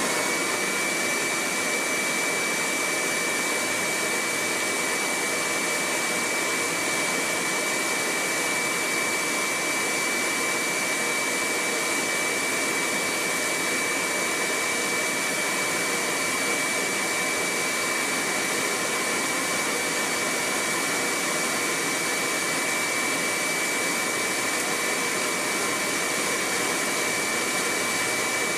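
ClearVue cyclone dust collector running steadily as it sucks loose sawdust up through its hose: an even rush of air with a steady high whine.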